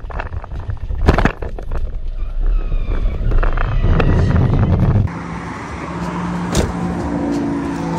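Car engine and road noise heard from inside the cabin of a car at speed. About five seconds in it cuts suddenly to a quieter, steadier hum.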